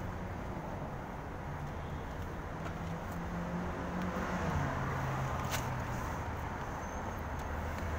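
Road traffic: a vehicle engine's steady low hum that drops in pitch about halfway through, with a few faint clicks over it.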